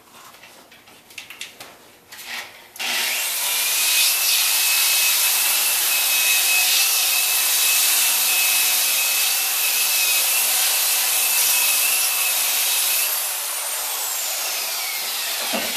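Handheld electric disc sander starting up about three seconds in and sanding a wooden propeller blade: a loud, steady whir with a high motor whine over the hiss of the disc. Near the end the sander is switched off and its whine falls as the motor winds down.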